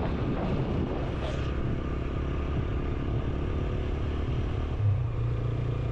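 Motorcycle engine running steadily while riding along a road, with its note shifting slightly about four seconds in.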